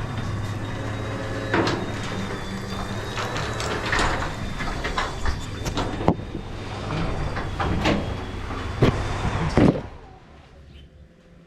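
Chamberlain HD220 garage door opener running as it closes the door: a steady motor hum with clattering knocks from the door. A loud bang near the end as the door comes down without slowing, then it stops. This fits the faulty opener whose adjustment controls are dead.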